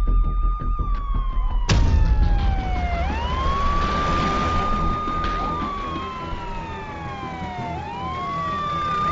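A siren wails, its pitch rising, holding and then sliding slowly down before rising again, over a steady low rumble. A throbbing pulse is cut off by a sudden loud hit just under two seconds in.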